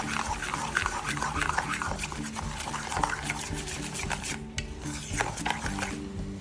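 Metal spoon stirring hot candy syrup in a saucepan, scraping and clinking against the pan in quick, irregular strokes.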